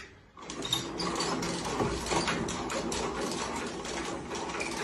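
Rapid, irregular mechanical clicking and rattling that starts about half a second in and keeps going.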